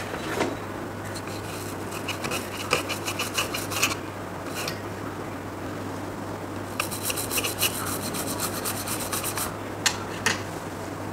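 Quick runs of rubbing or scraping strokes in two spells, with a couple of sharp clicks near the end, over a steady low hum.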